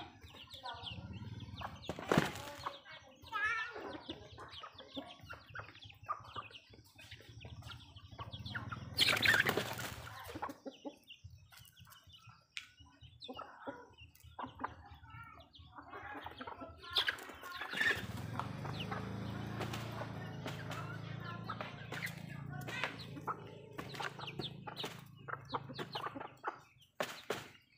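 Backyard chickens clucking while they feed, with scattered short taps of pecking at the ground. A loud burst of wing flapping comes about nine seconds in, and a shorter one about two seconds in.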